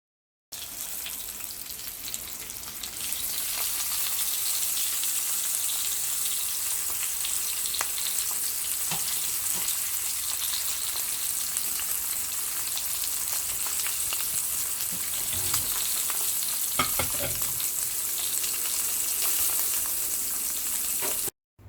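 Wagyu steaks sizzling in a frying pan: a steady hissing sizzle that grows louder a few seconds in, with a few light knocks from the pan or a utensil, then cuts off suddenly near the end.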